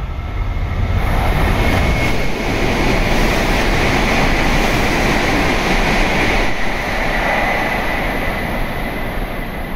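E7/W7 series Shinkansen passing non-stop through the station at about 260 km/h. The rush of air and wheel noise swells about a second in, stays loud for several seconds, then eases off near the end. A steady high whine runs through it.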